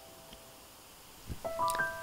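Soft piano music: a held chord fades away, then from about one and a half seconds in a few new notes enter one after another, climbing upward.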